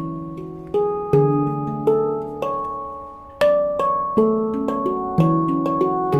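Handpan tuned to an F# low pygmy scale, played as a slow melody: struck notes with bell-like ringing overtones that overlap and fade, a deep bass note sounding about every second or two beneath higher notes.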